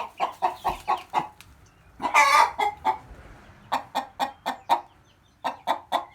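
Domestic hens clucking in runs of short, quick clucks, with one longer, louder squawk about two seconds in: an agitated hen upset at being disturbed on the nest.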